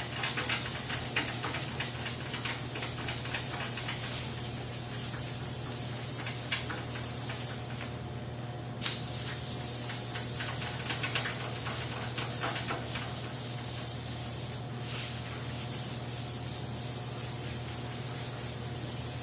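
400-grit sandpaper rubbed back and forth by hand over a dried coat of sanding conditioner, a steady scratchy hiss as it knocks down the high spots. The sanding pauses briefly about eight seconds in and again around fifteen seconds.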